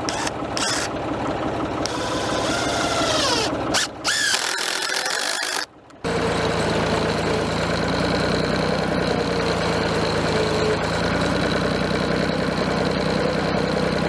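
Farm tractor engine running steadily at idle, breaking off briefly twice near the middle.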